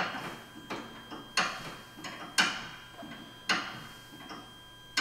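A spanner clicking and knocking against the front tie rod as it is turned to set the toe on a wheel alignment rig. The sharp metallic clicks come about once a second, some louder than others.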